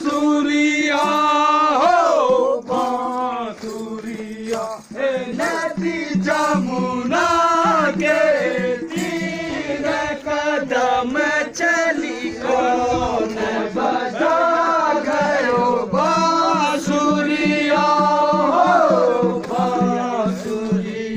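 A group of men singing a Kumaoni Holi folk song together, with a steady percussive beat under the melody.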